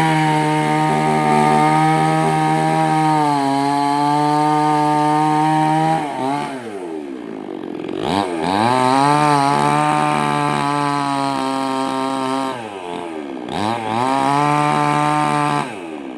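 Two-stroke chainsaw running at full throttle, cutting into a coconut trunk, its pitch sagging slightly under load. Twice it drops back toward idle for a moment and then revs up again.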